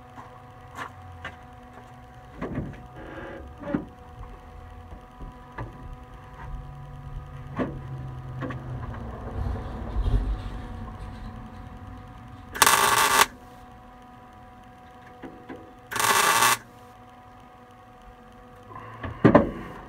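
MIG welder laying two short tack welds on sheet-steel floor pan, each a burst of arc crackle about half a second long, some three seconds apart. Light clicks and knocks of handling come before them, and a knock near the end.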